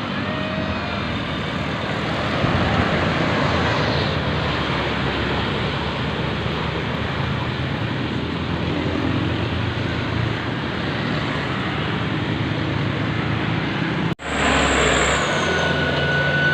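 Bus engine and road noise: a steady rushing sound over a low engine hum. It breaks off suddenly about 14 seconds in, and a steady high tone starts after the break.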